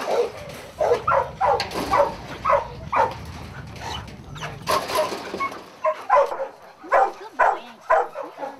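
Dogs in kennels barking over and over, short barks coming about two or three a second with a brief lull midway.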